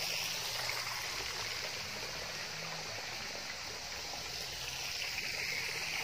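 Running water flowing steadily: a continuous, even hiss.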